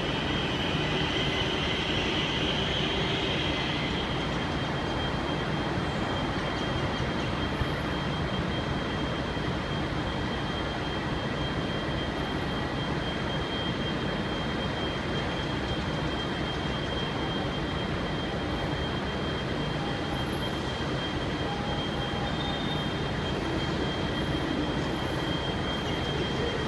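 V/Line N class diesel-electric locomotive running steadily, a constant rumble with a thin high-pitched whine held over it.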